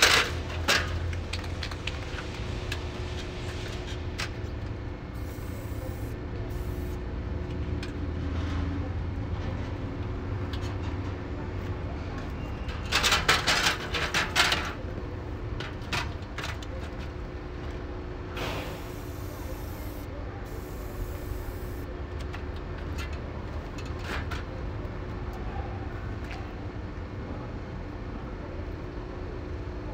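An aluminium stepladder being handled and set up on a concrete pavement: a few sharp knocks at the start, then a loud clatter and scrape for a second or two about thirteen seconds in as it is planted in front of the wall, over a steady low hum.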